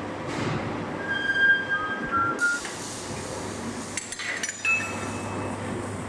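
Metal workshop noise: a steady low hum with metallic clinks and short high ringing squeals, a few sharp knocks near the end.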